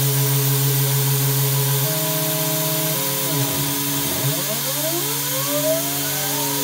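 DIY CNC router milling 6082 T6 aluminium plate with a 4 mm two-flute end mill, the spindle and cut whining over a hiss of lubricant mist blasting on the cutter. The steady tones shift about two seconds in, and from about three seconds several tones glide up and down.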